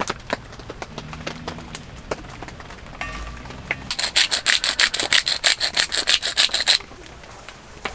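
A hand saw cutting through wood in quick, even strokes, about six a second, for a few seconds starting about halfway in, then stopping. Scattered light clicks of handled wood come before it.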